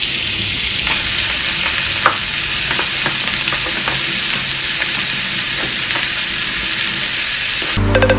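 Diced carrots sizzling steadily in oil in a frying pan as raw beef mince is added, with a few light knocks from a knife chopping tomatoes on a wooden board. Electronic music cuts in right at the end.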